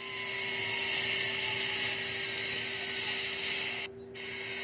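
A loud, steady high-pitched hiss over a faint steady low hum, cutting off abruptly near the end and starting again.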